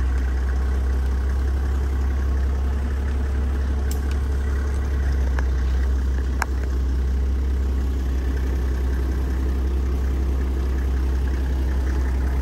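Toyota Land Cruiser engine running steadily, heard from inside the cabin as a low, constant hum. A few sharp clicks sound over it, the clearest a little past the middle.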